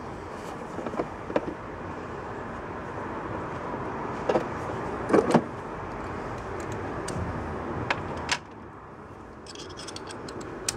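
A few sharp clicks and knocks as tools and plastic engine-bay parts are handled, the loudest pair a little past halfway. Under them runs a steady background rumble that drops away about eight seconds in.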